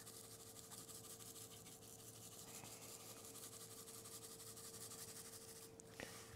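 Near silence: room tone with a faint steady hum and a small click near the end.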